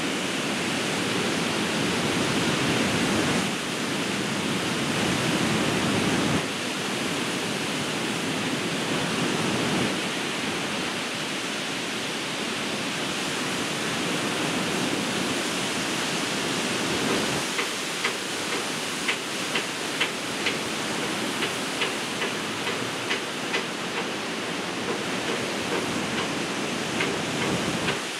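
Surf breaking on a beach: a steady rushing roar that swells and falls back as waves break. From about the middle on, a run of short sharp clicks, roughly one a second, sits over the roar.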